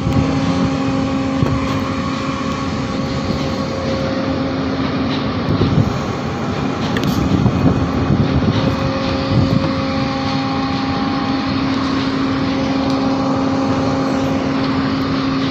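Steady hum of a ship's machinery at one constant pitch with overtones, under a loud, uneven rushing noise of wind on the microphone.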